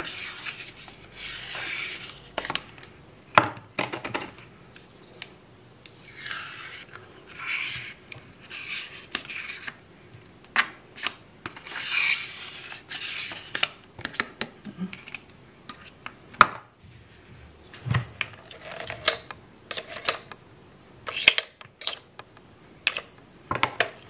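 Repeated rubbing and scraping, each swish lasting about a second, with scattered sharp clicks and knocks, as soft cream cheese is scooped and pushed into a ceramic mixing bowl of beaten butter.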